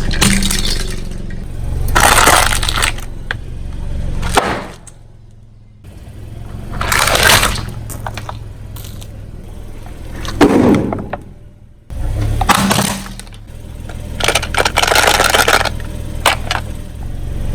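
A car tyre rolling over and crushing brittle objects, in several separate spells of crunching and cracking, over the steady low hum of the car's engine.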